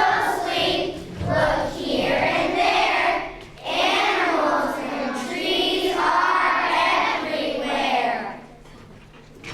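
Children singing a song together in several sung phrases; the singing stops about eight and a half seconds in.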